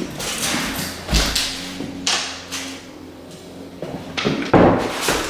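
Several short scrapes and a dull thump: handling noise of measuring and pencil-marking on wooden floorboards.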